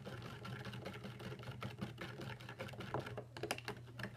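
Glue-and-borax slime being stirred in a plastic tub: quick small clicks and taps of the stirring utensil against the container, over a steady low hum.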